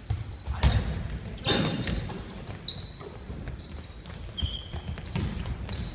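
Pickup basketball game on a wooden gym floor: the ball bounces with sharp thumps and sneakers give short high squeaks on the court, echoing in the hall, with scattered voices.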